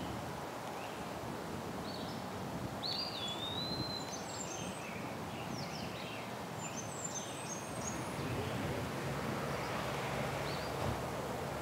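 Outdoor rural ambience: a steady background noise with small birds chirping and whistling, most busily in the middle few seconds.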